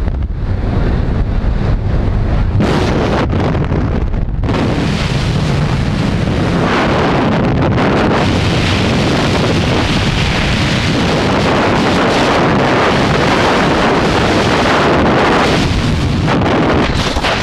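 Freefall wind rushing hard over a helmet camera's microphone as a skydiver falls after leaving the aircraft. For the first few seconds the rush is thinner, with a low drone beneath it. After about four seconds it fills out into a full, steady roar of wind.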